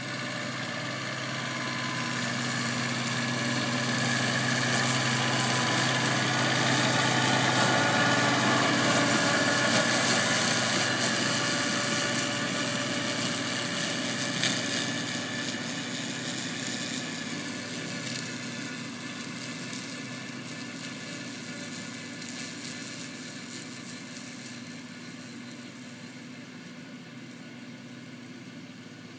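Kubota B1550 compact tractor's three-cylinder diesel engine running steadily, driving a 1.40 m flail mower that makes a broad rushing whir as it cuts grass. It grows louder as it passes, loudest about ten seconds in, then fades steadily as it moves away.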